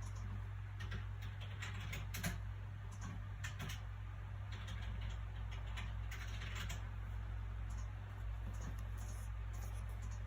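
Soft paper sounds from handling a book: scattered light clicks and rustles, with a longer rustle from about four and a half to seven seconds in, like a page being turned. A steady low background hum runs underneath.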